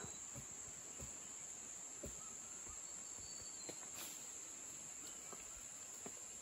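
Steady high-pitched insect chorus in woodland, a continuous shrill buzz. A few faint soft knocks come through now and then.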